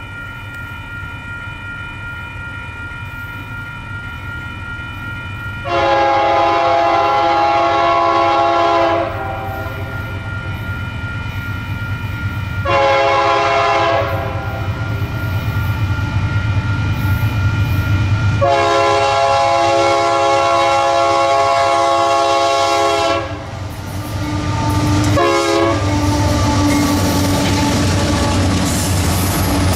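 Union Pacific diesel locomotive's multi-note air horn sounding a series of blasts as the train approaches: a faint held chord, then a long blast, a short one and a longer one of about five seconds. After that the low rumble of the locomotive and train grows louder as it draws near, with a brief horn tap.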